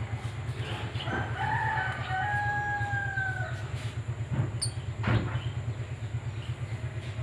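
A rooster crowing once, a long drawn call of about two and a half seconds that drops at the end, over a steady low hum, with a couple of short knocks afterwards.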